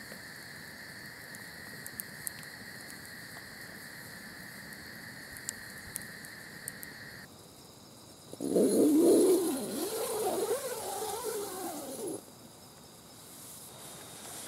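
A steady high insect drone with a few faint campfire crackles, cut off about halfway. Then comes the loudest sound, a tent door zipper pulled for about four seconds: a rasping buzz that rises and falls in pitch as the pull speeds up and slows.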